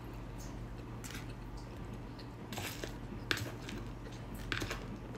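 Metal spoon clicking and scraping against a plastic bowl a few times during a meal, with quiet chewing, over a steady low hum.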